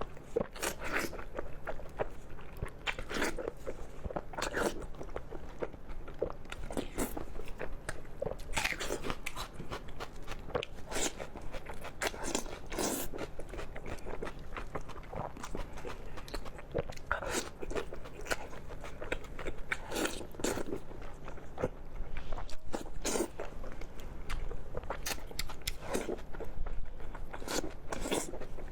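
Close-up eating sounds of a person biting and chewing lamb intestine bundles (yang kun chang): irregular crunchy bites and wet chews, roughly one every second or so, with a few louder bites near the end.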